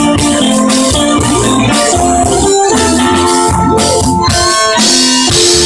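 Live band playing an instrumental passage: violin, cello, electric bass and guitar and drum kit, with long held notes and a sliding string note near the middle. The sound is loud and rough, as recorded close up.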